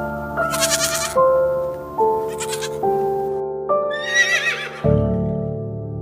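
A goat bleating a few times in short, wavering calls over background music of slow, sustained notes.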